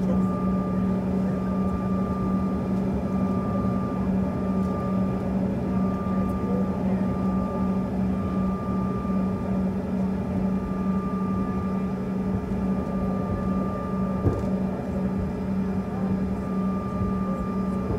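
Airliner cabin noise while taxiing: the jet engines and cabin air run as a steady drone, with a low hum and a thin high whine. A single light knock about fourteen seconds in.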